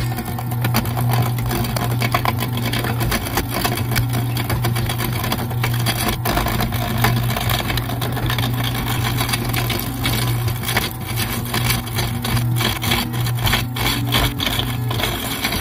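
Wood lathe running with a steady motor hum while a turning tool cuts the spinning wood blank, giving a dense, uneven scraping and ticking as shavings come off.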